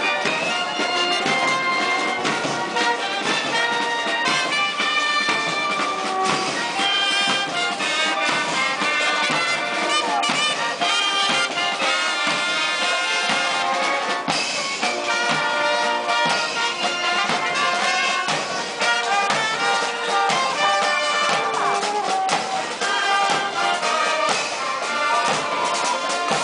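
Band music led by brass instruments such as trumpets and trombones, playing on steadily at an even level.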